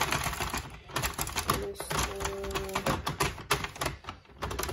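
Plastic 48-pin Sentro circular knitting machine being hand-cranked, its needles clattering past the yarn carriage in a fast run of clicks that thins out and turns irregular after about a second. The round is being re-run because one needle did not catch the new yarn.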